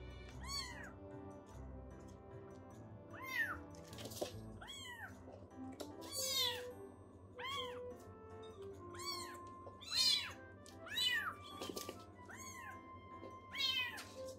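Baby kittens mewing again and again, short high cries that rise and fall, about one every second or so, over soft background music.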